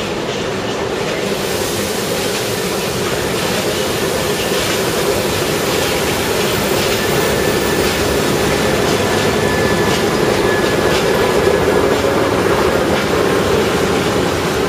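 Two PKP SM42 diesel locomotives passing close by at low speed, their diesel engines running loud and steady, with the sound building as they go past. Near the end the passenger coaches roll by behind them.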